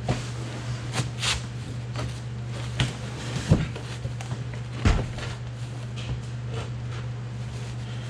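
Scattered knocks and clanks of tools and metal parts while a truck transmission is worked loose and lowered on a floor jack, the two heaviest thuds about three and a half and five seconds in, over a steady low hum.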